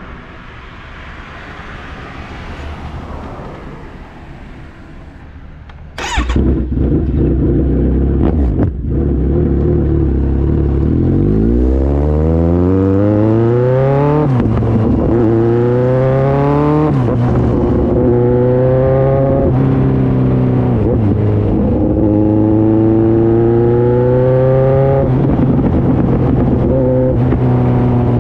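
Kawasaki Z900's inline-four engine through a full aftermarket exhaust (Atalla header, SC-Project muffler), heard close to the muffler while riding. It is fainter at first. After a sudden click about six seconds in it comes in loud, pulling up through the gears with the pitch climbing and dropping back at each shift. For the second half it holds a steadier pitch with brief dips as the throttle eases.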